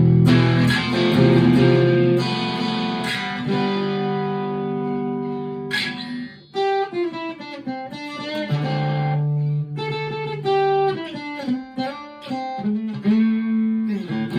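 Fender California Malibu acoustic-electric guitar played through a Harley Benton Tube 15 valve amp. Ringing strummed chords give way, about six seconds in, to a single-note melody with slides between notes.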